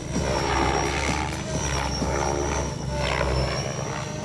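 Engine of a radio-controlled model aircraft flying overhead: a steady high-pitched whine over a lower engine drone.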